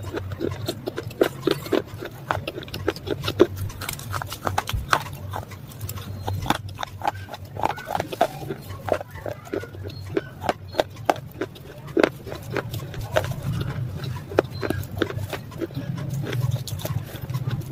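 Close-up mouth sounds of a person chewing crumbly white chunks: quick, irregular crunches and crackles, several a second. A steady low hum runs beneath.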